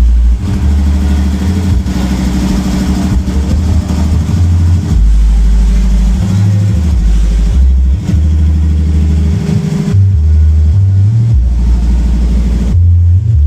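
A large carnival sound system playing a loud sound-check track of deep bass notes that step between a few pitches every second or so, with a steady wash of higher sound above.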